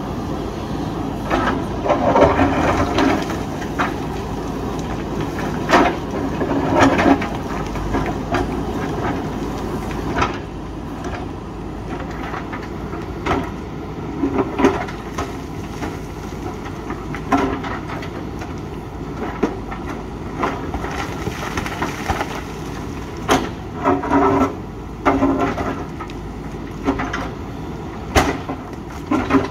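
JCB 3DX backhoe loader's diesel engine running, with repeated sharp knocks and bursts of scraping as its bucket digs and breaks into rock.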